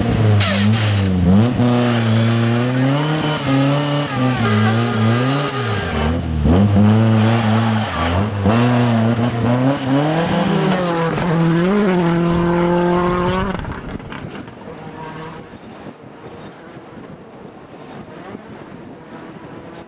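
Rally car engine driven hard, its revs climbing and dropping repeatedly through gear changes and braking, then dropping away sharply about fourteen seconds in as the car goes out of earshot.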